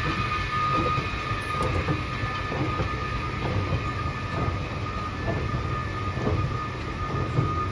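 A moving escalator running: a steady mechanical hum with a high whine, and a faint clack about once a second as the steps pass.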